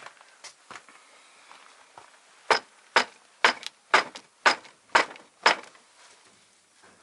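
Seven sharp knocks in an even rhythm, about two a second, starting about two and a half seconds in: a part being tapped hard to work something loose, likely a hydraulic lifter being knocked to free its plunger.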